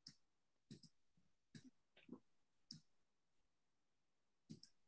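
Faint, scattered clicks of a computer keyboard and mouse as on-screen text is edited, about seven single clicks spread out with near silence between them.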